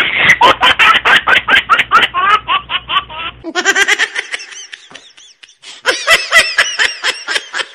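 High-pitched laughter in quick repeated bursts, dipping briefly about five seconds in before picking up again.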